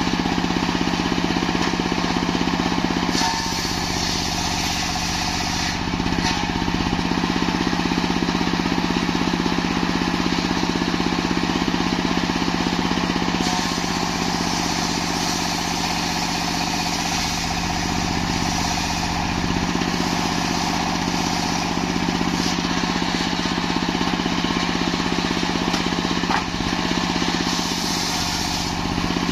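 Stationary engine running steadily and driving a circular-saw sawmill while the blade rips lengthwise through a log, the high cutting noise getting louder and softer in stretches as the wood is fed through.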